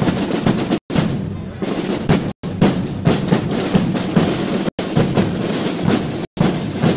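A drum band playing: fast snare drum rolls over bass drum beats. The sound cuts out briefly four times.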